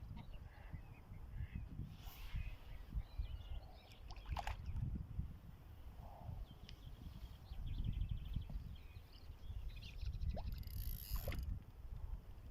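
Low gusting rumble with small birds chirping over it, and a short fast trill about halfway through.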